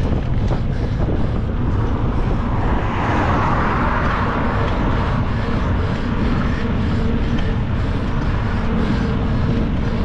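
Wind rushing over the microphone, with road noise from riding along a highway. A faint steady hum joins in about halfway through.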